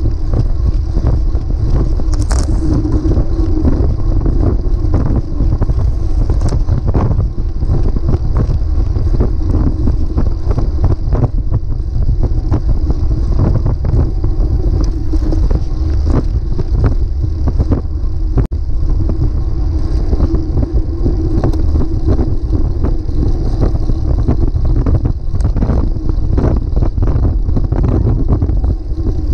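Wind buffeting the microphone of a camera moving along with a road bike at riding speed, a steady loud rumble mixed with tyre and road noise on asphalt. Small knocks from the bumpy road come through now and then.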